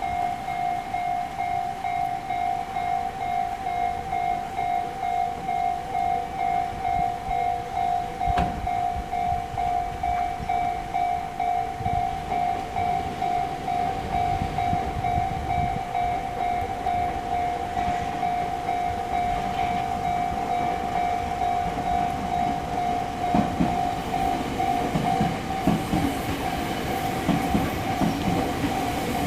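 Japanese level-crossing electronic alarm ringing in a steady repeated ding, about two strokes a second. A train rumbles over the crossing in the last few seconds, its wheels clacking over the rail joints.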